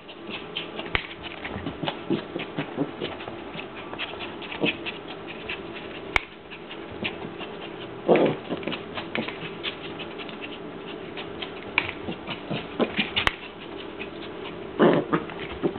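Norfolk terrier playing at fighting its lead: busy pattering and scuffling of paws and lead, with a couple of short, loud dog vocal bursts, about halfway through and near the end.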